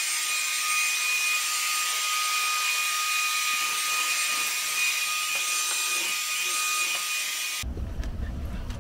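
Handheld stick vacuum cleaner running steadily over a carpeted floor: a rushing hiss with a high motor whine. It cuts off abruptly near the end, leaving a low rumble and a few knocks.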